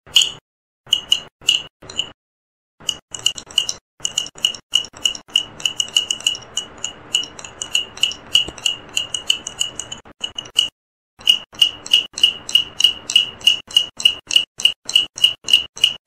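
Small gourd tapped with a thin stick, each strike giving a short, bright ringing tone. The taps start sparse, then come quickly, about three or four a second, stop briefly about eleven seconds in, and then go on at a steady pace.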